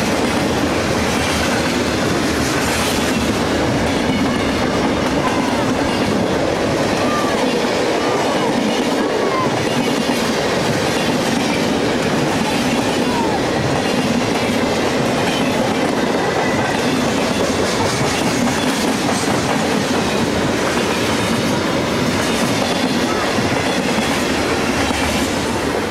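Freight train's cars (boxcars, covered hoppers and coil steel cars) rolling past close by at speed: a steady rumble with the clickety-clack of wheels over rail joints and a few short wheel squeals.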